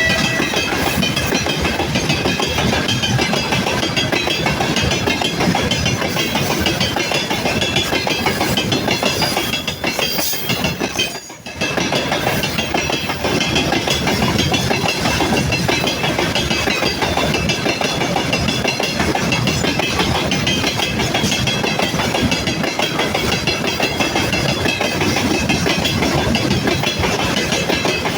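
Freight train of tank wagons rolling slowly past, the wheels clattering rhythmically over the rail joints. The clatter dips briefly about eleven seconds in.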